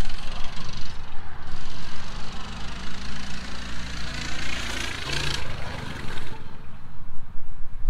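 A child's small motorbike running as it rides across the yard and passes close by. It is loudest about five seconds in, its note sweeping as it goes past, then falls away sharply a second later.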